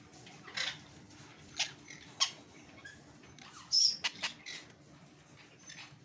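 Caged blue-throated parakeet giving a handful of short, high squeaks and sharp clicks, the loudest a brief squeak about two-thirds of the way in.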